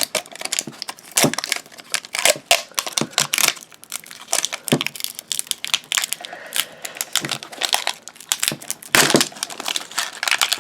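Plastic wrappers from an LOL Surprise doll's packaging being crinkled and torn open by hand, in quick irregular crackles.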